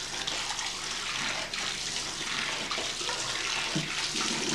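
Water running from a bathtub tap, a steady rush splashing into the tub and over someone leaning under it, with a few brief splashes.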